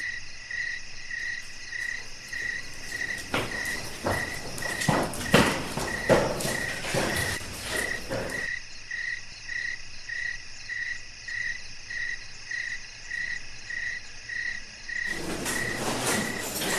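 Cricket chirping in an even rhythm, a little under two chirps a second. From about three to eight seconds in, footsteps fall over it, and near the end rustling comes in.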